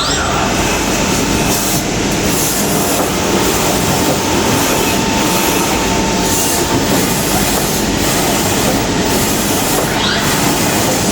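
CNC tapping machining center running a test cycle: a loud, steady clatter of machining noise with a constant whine, and a brief rising whine at the start and again near the end as the spindle speeds up.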